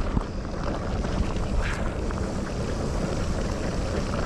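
Wind buffeting the microphone of a camera on a moving mountain bike, a steady rumbling rush with the trail noise of the ride under it.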